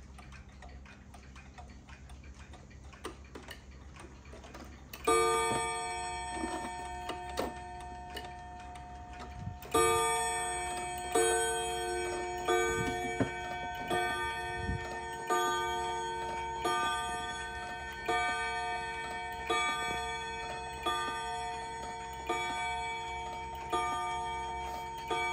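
Japanese Seikosha spring-wound wall clock striking on its two nickel-silver gong rods. After faint ticking, a first stroke comes about five seconds in; from about ten seconds on, a steady run of strokes follows, roughly one every second and a half, each ringing on into the next.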